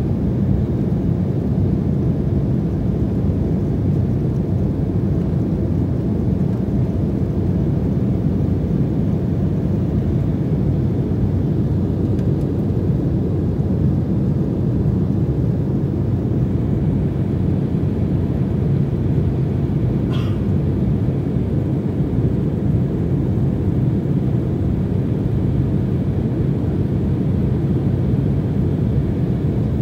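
Jet airliner cabin noise in cruise flight: the steady low rumble of the engines and airflow heard from a window seat inside the cabin.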